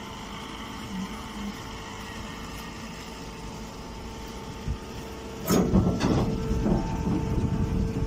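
Hydraulic straw baler's power unit running with a steady hum. A single knock comes a little before five seconds in, and about five and a half seconds in a louder stretch of rustling and clattering starts as the bagged straw bale is worked out of the bale door.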